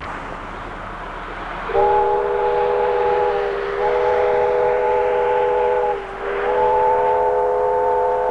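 Steam locomotive J1211's chime whistle sounding three long blasts of a steady multi-note chord, the last still sounding at the end.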